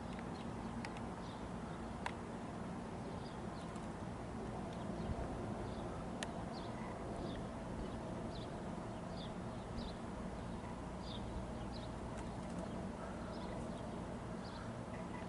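A small bird chirping over and over, short high chirps about once a second, over a steady low rumble.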